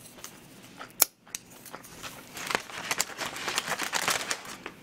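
Lettuce leaves and a clear plastic delivery container rustling and crinkling as leaves are pulled out: a sharp click about a second in, then a dense run of small crackles through the second half.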